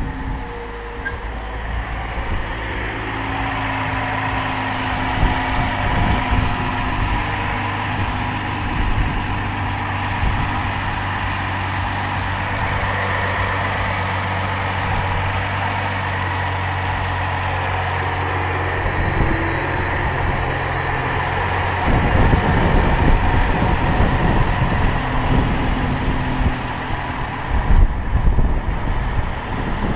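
Dodge Charger's 3.6-litre V6 idling steadily, run after the coolant refill so the coolant circulates through the new thermostat. Wind buffets the microphone from about two-thirds of the way through.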